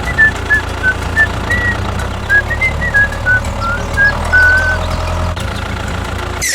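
Steady low engine rumble from a small vehicle, with a background tune of short high notes running over it. It cuts off abruptly at the end.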